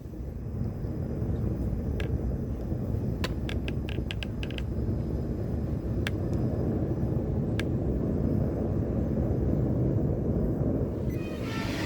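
Gas burner of a Devil Forge furnace running with a steady low rumble, heating a new crucible. A few sharp clicks and ticks come through about two to five seconds in, and near the end the sound turns hissier.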